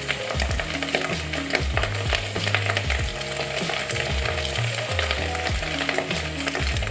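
Crushed-Doritos-coated chicken pieces deep-frying in a small pot of hot oil: a steady sizzling hiss full of small crackles and pops as more pieces go in.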